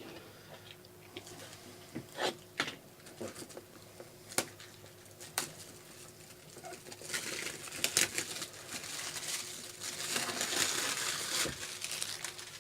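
Packaging of a Funko Pop mystery box being handled and opened by hand: a few sharp clicks and taps, then a stretch of rustling and crinkling.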